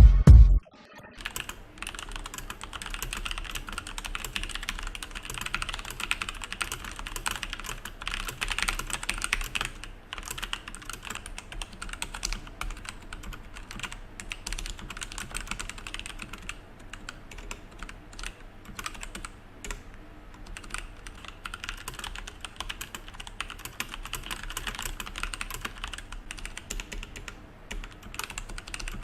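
Fast typing on a mechanical keyboard with Outemu Brown tactile switches: a dense run of keystroke clicks. The keys start without O-rings, then get quieter and softer after about ten seconds, when rubber O-rings on the keycaps damp the bottom-out. They turn louder again without O-rings a few seconds before the end.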